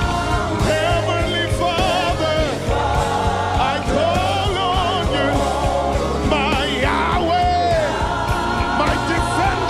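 Live gospel worship band playing, with bass, drums and keyboards, under singing and a wavering high melody line.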